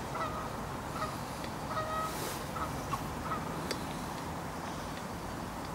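A bird calling in short, flat notes, about six in the first three and a half seconds, over a steady rush of background noise.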